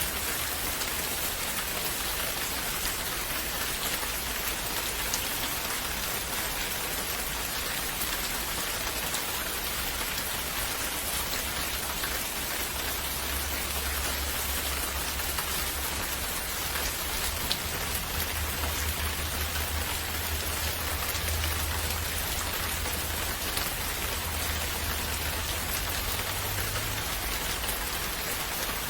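Steady rain falling, a dense even hiss with a few separate drop ticks. About twelve seconds in, a low rumble comes in underneath and stays.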